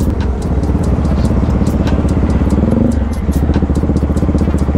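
Motorcycle engine running at low speed as the bike rolls along, the exhaust pulsing rapidly, with a brief rise in revs about halfway through that falls back again.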